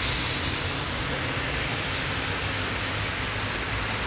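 Steady city street traffic noise, a low rumble under an even hiss, with no single event standing out.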